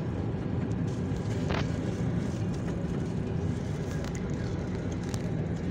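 Steady engine and tyre road noise of a car driving at speed, heard from inside the cabin, with a brief click about a second and a half in.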